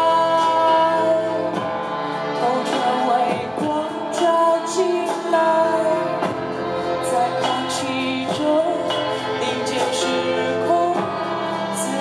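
Live band performing a song: a woman singing over electric keyboards and organ, with cello and violin playing along.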